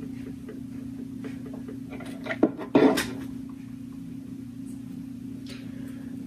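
A plastic hot glue gun set down upright on a tabletop: a short clatter about two and a half seconds in, over a steady low hum.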